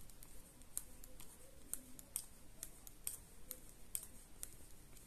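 Metal knitting needles clicking faintly, about two clicks a second, as stitches are purled in fluffy yarn.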